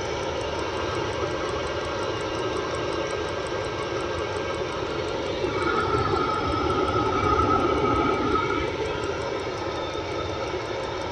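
Diesel air heater (8 kW) running, its burner and blower making a steady roar like a jet engine. For about three seconds in the middle it grows louder, close to its exhaust muffler, with a steady whistle over the roar.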